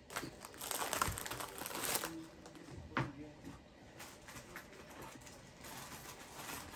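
Crinkling of a plastic food packet being handled and set down on a table, then a single knock about three seconds in, followed by faint small rummaging noises.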